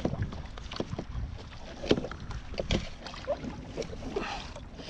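Irregular knocks and clatters of handling on a sit-on-top fishing kayak, the loudest about two seconds in and again shortly after, over a low rumble of wind on the microphone.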